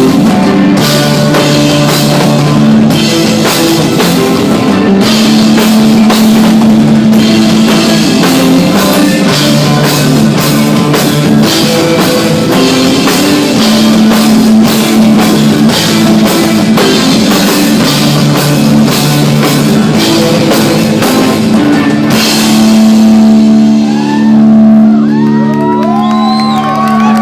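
Live instrumental desert rock: electric guitar, bass and drum kit playing a repeating groove. About 22 seconds in the drums stop, leaving held bass and guitar notes ringing, with high tones sliding up and down over them near the end.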